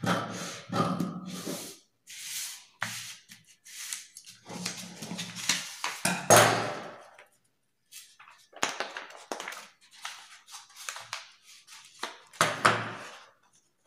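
Tailoring scissors cutting through brown pattern paper, then the stiff paper rustling and crinkling as it is handled, in irregular bursts with short pauses.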